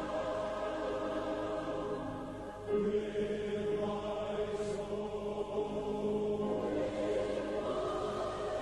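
Choral chanting over background music: voices hold long, sustained tones, the chord shifting to a lower register about three seconds in.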